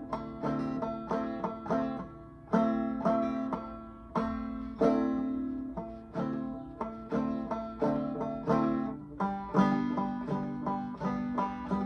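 Five-string banjo played clawhammer style: a rhythm pattern of plucked notes and brushed strums, each with a sharp attack and a ringing decay, uneven in places as a beginner practises, with a final chord left ringing near the end.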